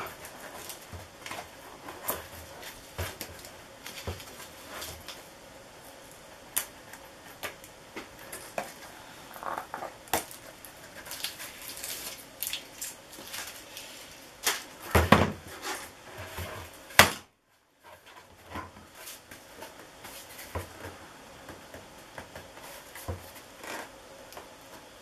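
Scattered handling noises of hands working at a small tube and its end fitting: irregular clicks, light knocks and scrapes. The loudest clatter comes about fifteen seconds in, followed by a moment of dead silence.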